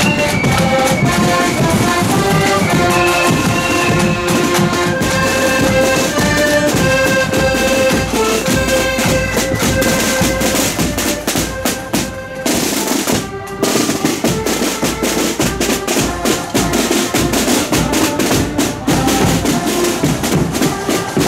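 Marching accordion band playing a tune in unison over side drums and a bass drum. About twelve seconds in the tune stops, and after a brief break the drums carry on alone with a marching beat and rolls.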